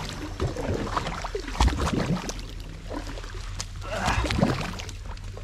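Kayak paddle strokes pushing through a thick, porridge-like mat of duckweed: irregular sloshing and gurgling of the choked water, with a few sharp knocks.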